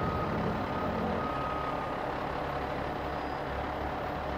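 Heavy rotator tow truck's diesel engine running steadily while its boom swings. A high-pitched warning beep sounds twice in the first second and a half.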